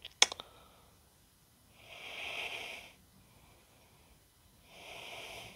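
A person breathing out twice close to the microphone, each breath a soft whoosh about a second long, while working a soldering iron on a connector. A short sharp click comes just after the start.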